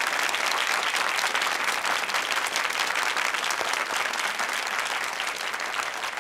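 Studio audience applauding, dense steady clapping that eases off slightly near the end.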